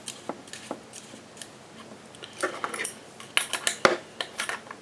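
Scattered light metallic clicks and clinks, busier in the second half, of a scuba regulator's second stage being screwed onto its hose by hand and metal spanners being handled.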